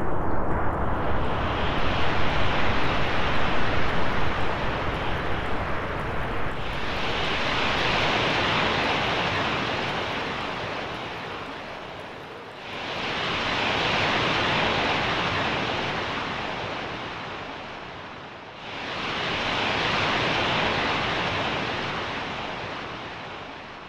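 Surf washing in: a broad rushing noise that swells about every six seconds, each surge rising quickly and slowly fading away, with a heavier low rumble in the first few seconds.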